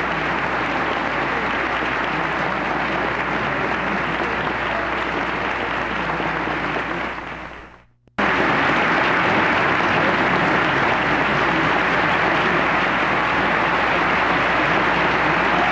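Concert-hall audience applauding steadily. The applause fades out about halfway, breaks off for a moment, then comes back abruptly at full strength at an edit in the recording.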